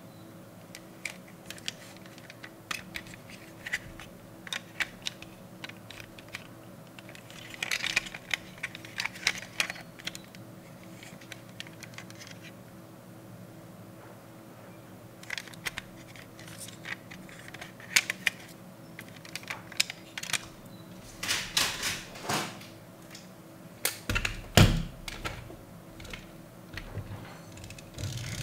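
Small clicks and snaps of a die-cast metal toy SUV's hinged doors being swung open and shut by hand, with light handling taps, coming in irregular clusters. A few heavier knocks near the end.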